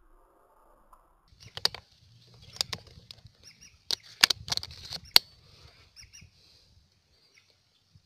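A shot whistling duck thrashing and flapping its wings on the water: a string of sharp splashes and wing slaps over high, repeated whistling calls, fading out near the end.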